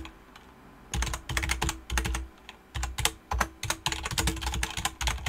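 Typing on a computer keyboard, in quick runs of keystrokes with short pauses between them, starting about a second in.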